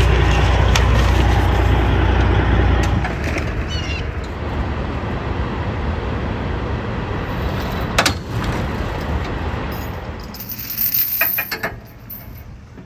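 A motor vehicle's engine rumbling steadily, dropping off sharply about three seconds in and leaving a lower, even noise. A sharp knock comes about eight seconds in, and a quick cluster of clicks and knocks follows near the end.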